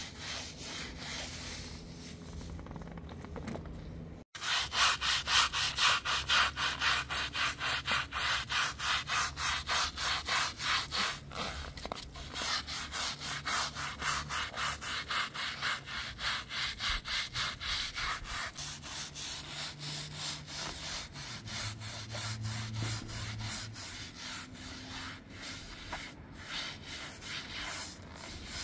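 A small hand brush scrubbing a wet, soapy carpet in quick, rhythmic back-and-forth strokes, about two or three a second. For the first few seconds, before a brief break, a straw broom swishes more softly over the soapy carpet.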